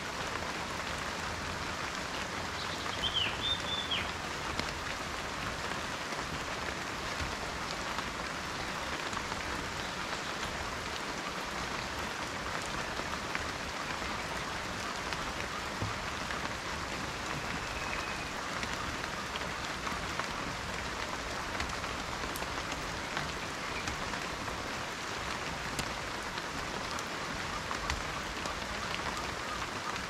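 Steady rain falling on forest leaves and undergrowth.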